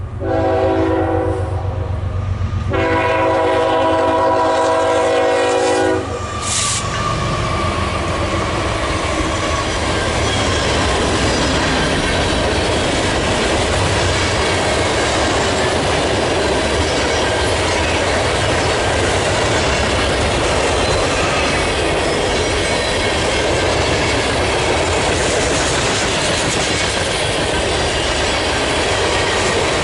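Locomotive air horn sounding two blasts, a shorter one and then a longer one ending about six seconds in, followed by a train rolling past with a steady rumble and clickety-clack of wheels on rail joints.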